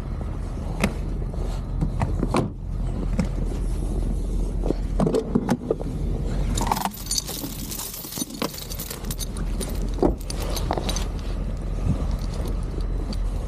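Steel tow chain clinking and rattling as it is handled and carried, with the densest jingling from about six to nine seconds in and scattered knocks throughout, over a steady low rumble.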